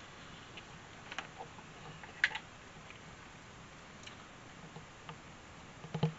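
Scattered light clicks and ticks of small wires and plastic connectors being handled on a workbench, the sharpest about two seconds in.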